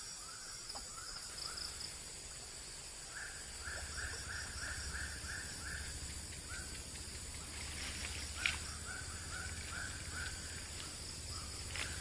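Outdoor evening animal calls: bouts of short rising chirps, about five or six a second, come in runs of several, over a steady high-pitched insect drone. A single sharp click sounds about eight and a half seconds in.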